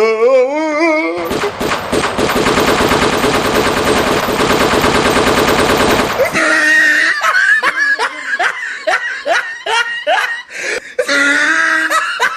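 A rapid burst of machine-gun fire, the prank gun sound effect, running for about five seconds after a wavering cry; then a person laughs hard in short repeated bursts.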